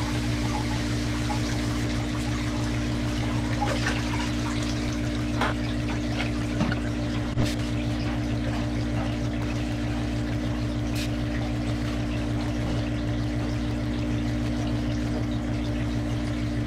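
Hang-on-back aquarium filters running: a steady splash and trickle of water falling back into the tank over a low, steady motor hum.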